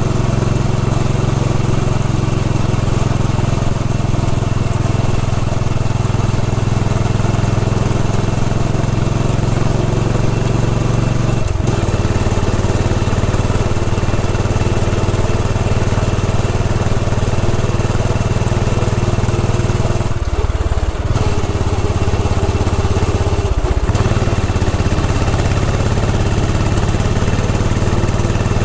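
Royal Enfield Bullet 500's single-cylinder four-stroke engine running steadily while the motorcycle is ridden along, its note breaking briefly three times in the second half, as at a gear change or throttle lift.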